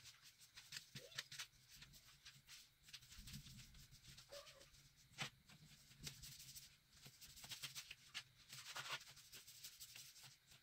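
Faint, scratchy strokes of paintbrushes spreading black paint over crayon-coloured paper.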